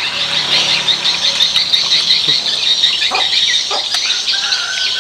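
Steady outdoor chorus of rapid, high chirping from small animals, with a few short lower calls around the middle and a held whistle-like tone near the end.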